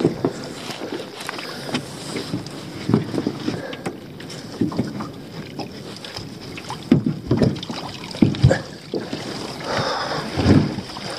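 Wet pot rope hauled hand over hand into a small dinghy and dropped in coils on the floor: rope rubbing and irregular knocks and clatter against the boat, with a few louder knocks in the second half.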